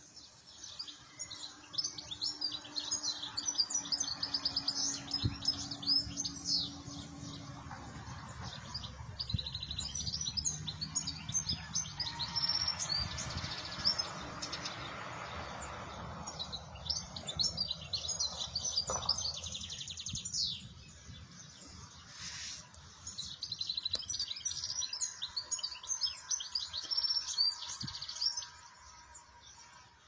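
European goldfinch singing: long runs of rapid, high, twittering notes lasting several seconds each, broken by short pauses.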